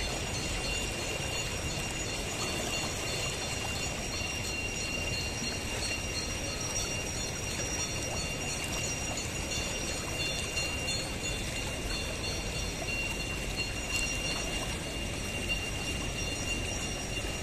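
The swollen Ganges rushing fast over submerged ghat steps, a steady, unbroken noise of turbulent water. A thin, steady high-pitched tone runs above it.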